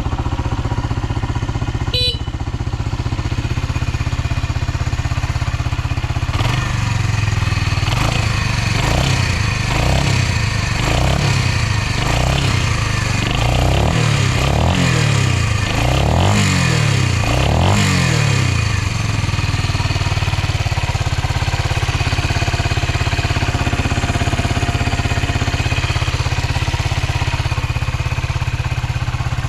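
Suzuki Volty's single-cylinder four-stroke engine idling, then revved in a series of quick throttle blips from about six seconds in until about nineteen, each rising and dropping straight back to idle, before it settles to a steady idle again. It revs up cleanly with no abnormal noise. A short click sounds about two seconds in.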